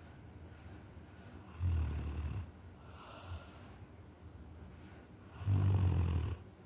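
Loud snoring from a sleeper: two long snores about four seconds apart, each a low rumble lasting under a second, with quiet breathing between.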